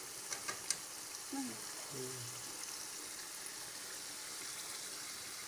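Mutton curry frying in a pan: a steady high sizzling hiss, with a few sharp clicks in the first second.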